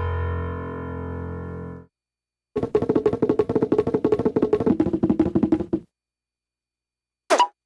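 Cartoon sound effects: a held musical tone that stops about two seconds in, then after a short gap a fast run of wood-block-like taps lasting about three seconds, dropping slightly in pitch partway. A brief short sound comes near the end.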